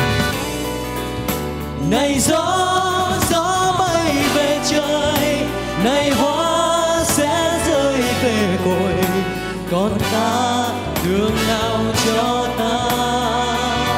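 A Vietnamese ballad sung live into a handheld microphone over instrumental accompaniment. The voice slides up onto long held notes, some with vibrato.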